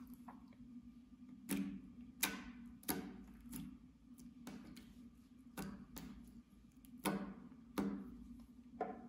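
Clear slime pressed and patted flat with fingertips, giving about ten sharp, wet clicks and pops at irregular intervals. A faint steady low hum runs underneath.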